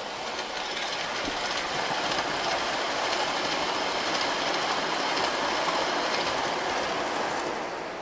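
MTH Premier O-gauge model train, a PRR Atlantic steam locomotive with 70-foot passenger cars, rolling past on the track with a steady rolling noise and light clicking of wheels over the rails. It swells as the train comes by and fades near the end.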